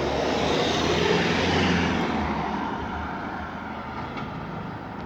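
Police helicopter flying low overhead, its engine and rotors loud at first and then fading over the next few seconds as it moves away.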